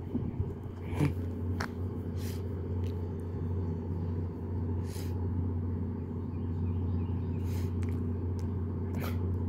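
Steady low rumble of an idling diesel passenger train, with a few brief faint clicks over it.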